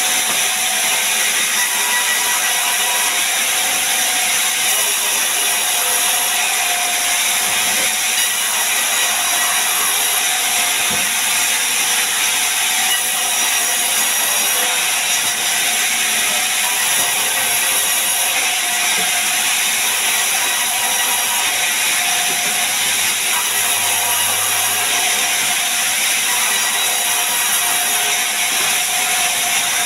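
Large vertical band saw in a sawmill running and ripping logs lengthwise into slabs, a loud, steady, hissing rasp of the blade through the wood.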